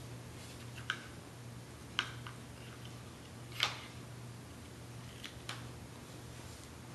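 Jigsaw puzzle pieces being handled and set down: a few light, scattered clicks and taps, the loudest about three and a half seconds in, over a low steady hum.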